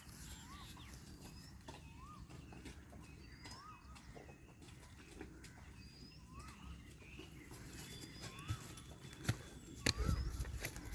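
A bird calling over and over, a short whistled note that rises and falls, repeated every second or two. About nine seconds in there are several loud low thumps.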